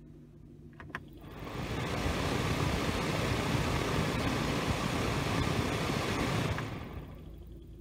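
Car HVAC blower motor and squirrel-cage fan of a 2012 Hyundai Santa Fe, switched on with a faint click about a second in. It spins up over about a second to a steady loud rush of air, then winds down near the end.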